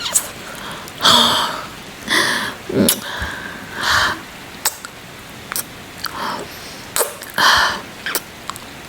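Close-miked ASMR kissing: wet lip smacks and kisses mixed with breathy exhales, over a steady hiss of rain.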